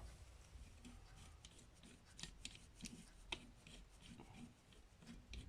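Faint handling noise from small metal carburetor parts being worked by hand: scattered light clicks and rubbing, a few sharper ticks in the middle.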